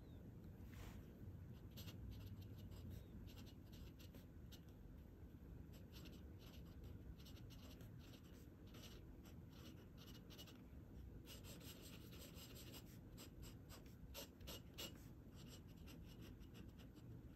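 Faint scratching of a glass dip pen's nib on notebook paper, in many short strokes as letters and squiggles are written, with a quick flurry of strokes about two-thirds of the way through.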